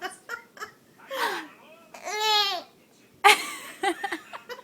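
Baby laughing in short bursts and babbling, with one longer pitched sound that rises and falls about two seconds in.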